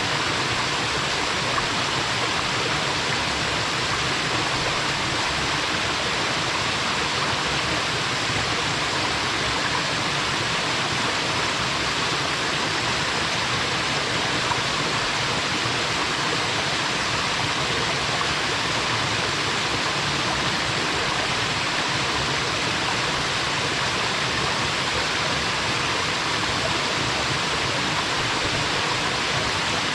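Small waterfall splashing steadily into a pool, an even rush of falling water with a bubbling, gurgling quality.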